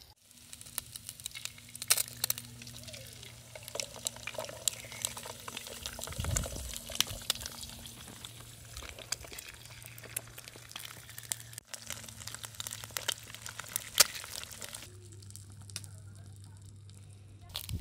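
Eggs and dates frying in hot oil in a shallow metal pan: a steady crackling sizzle full of small pops. A few louder sharp taps come as eggshells are cracked against the pan, about two seconds in and again near the end.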